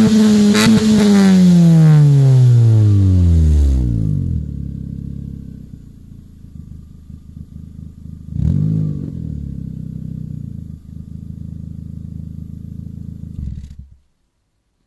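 Opel Corsa C's Z18XE 1.8-litre four-cylinder engine heard at the tailpipe of a 45 mm straight-through exhaust with a Carub muffler. It is revved high at the start and falls slowly back to idle over about four seconds, gets one short blip of the throttle about eight seconds in, then idles until the sound cuts off near the end.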